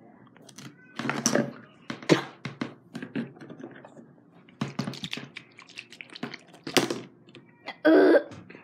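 A string of irregular knocks and thumps, with one short, louder burst near the end.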